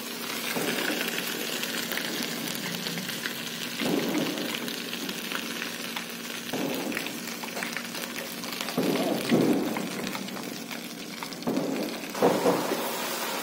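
Ginger-garlic paste sizzling in hot mustard oil in a kadai: a steady crackling hiss, with a few dull knocks at intervals.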